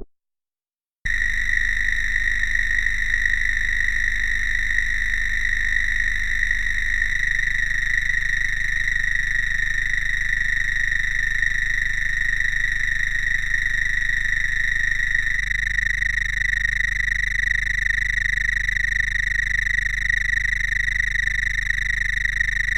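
Synthesized electronic sound effect: a steady high tone with overtones over a low buzzing drone that shifts twice. It starts about a second in and cuts off abruptly at the end.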